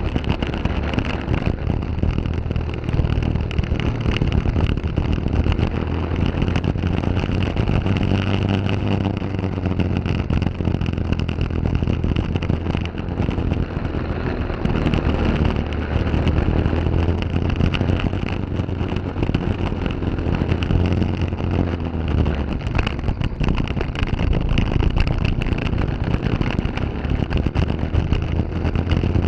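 Briggs & Stratton LO206 single-cylinder four-stroke kart engine running at race pace, heard on board, its note shifting up and down with the throttle through the corners. Wind noise on the microphone runs underneath.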